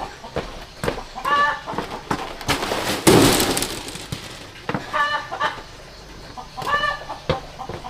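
Chickens clucking in short calls, one about every two seconds. A loud burst of noise lasting about a second comes around three seconds in, with scattered clicks and knocks throughout.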